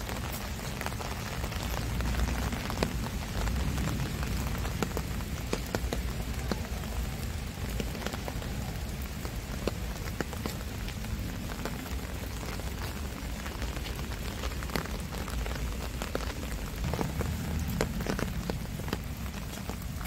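Steady rain falling, with many separate drops ticking sharply over an even hiss and a low rumble underneath.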